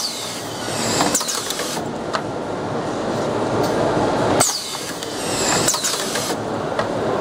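Automatic screw-fastening machine for window profiles running through its cycle twice, about four seconds apart. Each cycle brings mechanical clicks and high whines from the screwing heads that fall in pitch, over a steady machine hum.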